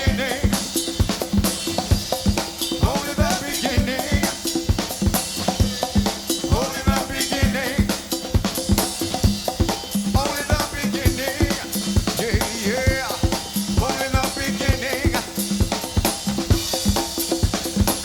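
A live band playing a groove: a steady drum-kit beat with snare and bass drum under a bass line, and a rising melodic phrase that comes back every few seconds.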